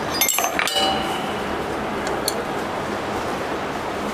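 Metal tools and engine parts clinking and clanking: a quick cluster of clinks with a short metallic ring in the first second, then a single light tap about two seconds in, over steady background noise.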